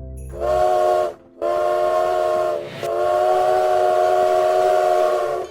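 Puffing Billy steam locomotive's whistle blowing three steady blasts: a short one, a longer one, then a long one, each a chord of several tones, as the train approaches the station.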